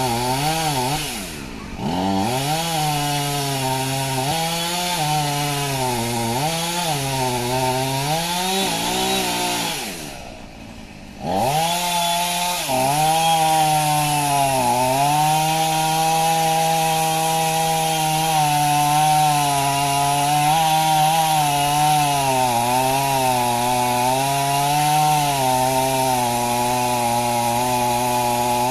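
Petrol two-stroke chainsaw running at high revs as it cuts into a dead tree trunk. Its pitch dips and recovers over and over as the chain loads up in the wood. About ten seconds in it falls back briefly toward idle, then revs up again and cuts on more steadily.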